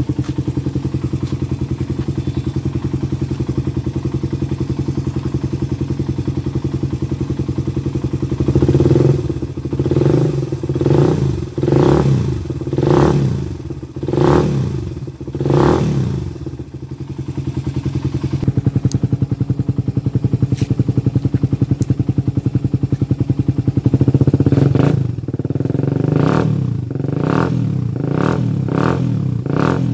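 Suzuki Raider 150 single-cylinder four-stroke idling through a gutted stock muffler with an enlarged outlet hole, then blipped up and down about seven times a third of the way in. It settles back to idle, then gets another run of quick blips near the end. The exhaust note is bassy.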